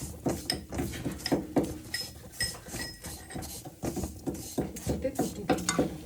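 Spoon stirring and scraping spices frying in a pan, with irregular clinks and knocks of the spoon against the pan a few times a second.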